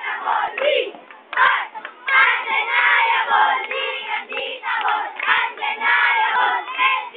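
A large crowd of schoolchildren yelling together, many voices at once. Short shouts for the first two seconds, then a continuous group yell from about two seconds in.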